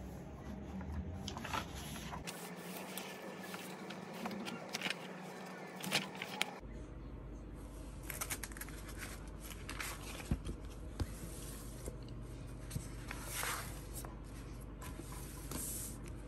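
Paper rustling as booklet and book pages are handled and turned on a desk, with a few light knocks.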